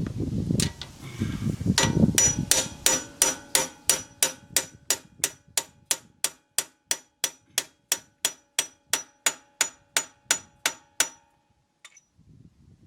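Steady hammering on metal: about thirty evenly spaced strikes, roughly three a second, each with a short metallic ring, stopping near the end.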